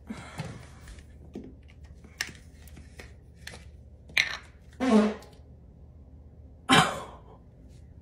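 Three short farts in the second half, each a brief burst; the middle one has a low, falling pitch. Before them, small clicks and knocks come from a toothbrush and toothpaste tube being handled.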